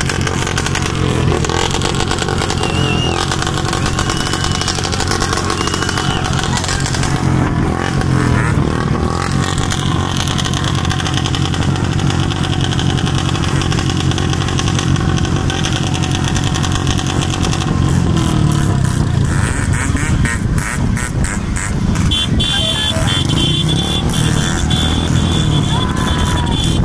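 Several motorcycles running along together at speed, their engines droning, with wind rushing over the microphone of the moving bike. A steady high tone sounds for the last few seconds.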